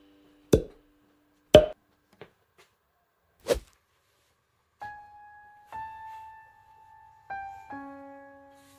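Three loud, sharp thuds in the first few seconds, then a few slow, single piano notes of background music ringing and fading.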